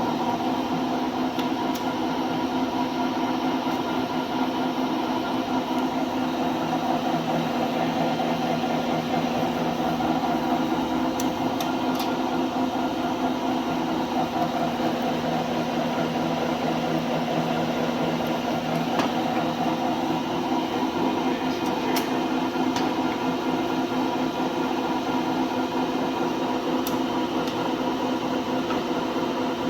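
LeBlond Regal engine lathe running under power, its headstock gearing and spindle turning with a steady hum and several constant pitched tones, with a few faint ticks.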